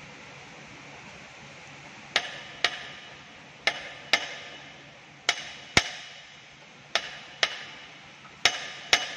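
A hand hammer strikes the steel pinion on a traction motor shaft ten times, in five quick pairs about a second and a half apart, each blow ringing metallically. The blows are meant to jar the pinion loose while oil pressure from a hydraulic hose is applied to it.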